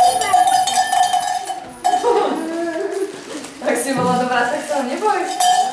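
A hand bell shaken to ring steadily for about two seconds, stopping, then ringing again near the end, with children's voices in the gap.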